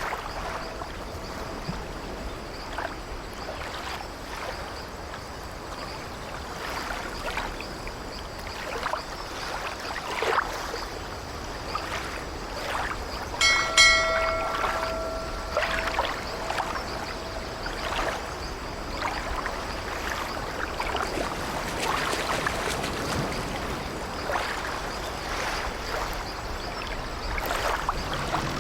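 Sea waves washing against an old wooden ship, with the ship's timbers creaking now and then. A bell rings once about halfway through and rings on for a couple of seconds.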